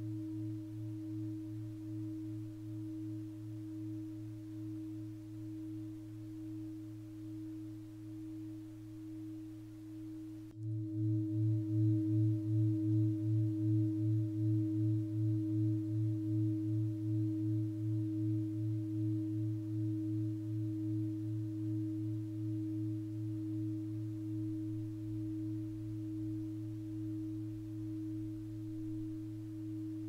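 Tibetan bell tuned to the 'Venus' tone, ringing with a deep steady hum and a higher overtone, the low note pulsing in a slow waver about two or three times a second. About ten seconds in, a sharp click comes and the ring jumps louder, then slowly dies away.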